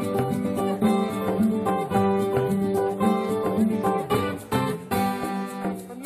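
Background music: an acoustic guitar playing a quick run of plucked notes.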